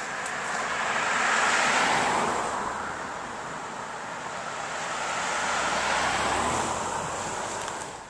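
Two vehicles passing one after the other on a paved road, their tyre and engine noise swelling and fading away, once about two seconds in and again, with more low rumble, about six seconds in; the second is an SUV.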